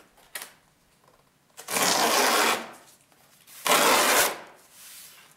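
Corrugated cardboard box being ripped open by hand: two long tearing rips, about two seconds in and again about four seconds in, with a few small clicks before them.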